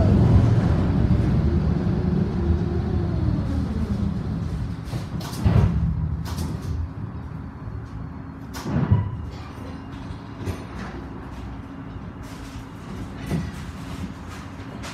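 Konstal 114Na tram heard from inside, slowing to a stop: the low rumble of wheels and running gear fades over the first few seconds as the tram comes to rest. It then stands with a steady low hum, broken by two sharp knocks about five and nine seconds in.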